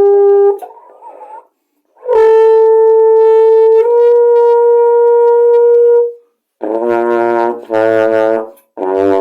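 Yamaha 301M marching baritone, a three-valve brass horn that sounds much like a trombone, playing notes of a scale: one note cuts off just after the start, then a long held note of about four seconds, then three shorter, lower notes with a bright, brassy tone.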